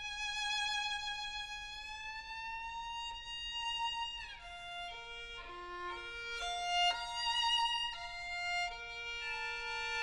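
Solo violin playing a slow melodic line: a long held note that slides gradually upward, a quick downward glide about four seconds in, then a few short separate notes settling onto a long, lower held note.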